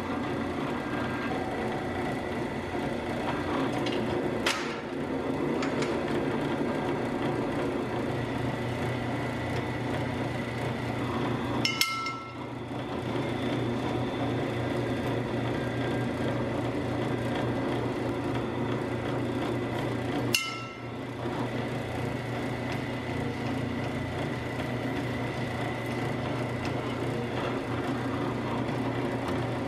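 Benchtop drill press running steadily while countersinking drilled holes in a metal Picatinny-rail scope riser, with a few sharp clicks.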